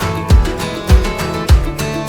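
Background music with a steady low beat, a little under two beats a second.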